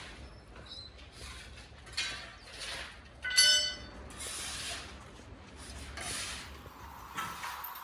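Metalworking sounds: a series of rasping strokes, and about three seconds in a single loud ringing clang of struck metal. A steady tone comes in near the end.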